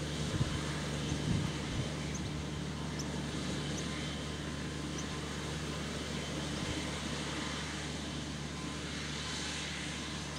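JCB Fastrac 3190 tractor's diesel engine running at a steady working speed as it pulls a Vredo slot seeder across grassland, giving an even low drone. A few soft low thumps come in the first two seconds.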